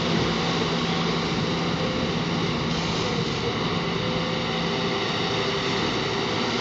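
Diesel engine of a Sumitomo SH210 amphibious excavator running with a steady drone as the machine moves through the water on its pontoon tracks.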